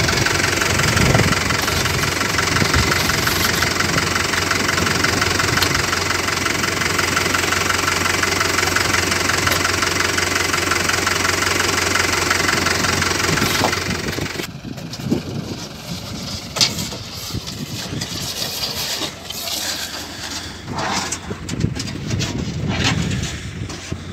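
Fiat 70-56 tractor's diesel engine running steadily while a tipping trailer is unloaded. About fifteen seconds in it drops away sharply, leaving quieter irregular knocks.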